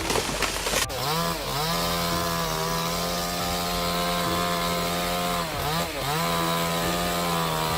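Two-stroke chainsaw running at high revs with a steady whine. Its engine speed dips briefly and picks back up about a second in and again near six seconds.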